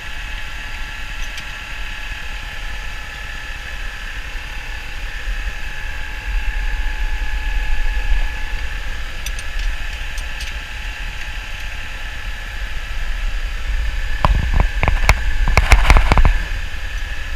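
A GMC squarebody truck's engine, fitted with a camshaft much too big for it, idling steadily at operating temperature under a steady whine. About three-quarters of the way through comes a quick run of knocks and clatter.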